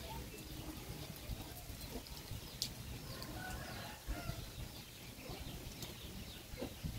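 Chickens clucking faintly in short scattered calls, with one sharp click about two and a half seconds in.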